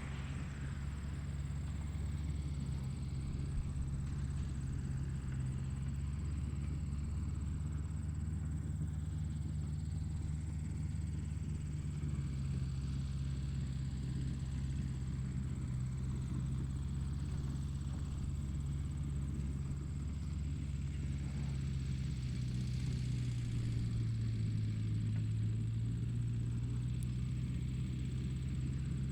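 Tractor engine running steadily, a continuous low drone whose pitch sinks slightly a little over two-thirds of the way through.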